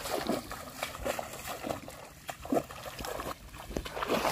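Shallow river water splashing and sloshing irregularly as a person wades and runs through it with quick steps.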